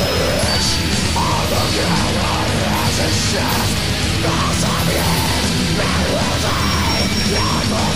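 Loud heavy-metal-style music.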